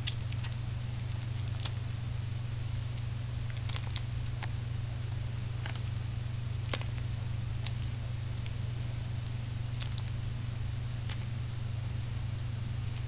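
A West Highland white terrier puppy suckling, making short irregular smacking clicks every second or so. Under it runs a steady low hum with a thin high whine.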